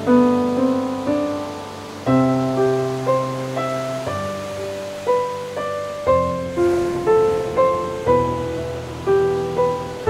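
Slow, gentle solo piano music: a simple melody of single struck notes that ring and fade, over low chords that change about every two seconds. A soft hiss of ocean waves runs underneath.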